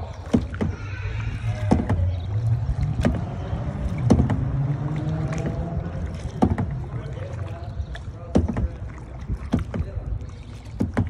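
Kayak paddle strokes dipping and splashing in calm water, a sharp splash or knock every second or so. Through the first half a gondolier sings faintly, with long held notes.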